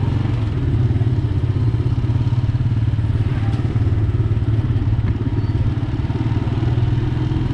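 Motorcycle engine running steadily close by, with general street noise around it.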